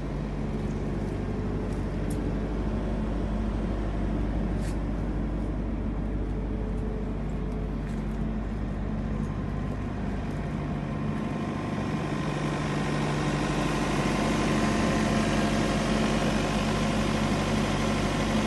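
Thermo King SL-200e reefer unit's diesel engine running steadily at a constant speed, a low even hum. It grows louder and hissier over the last third, with more fan and air noise.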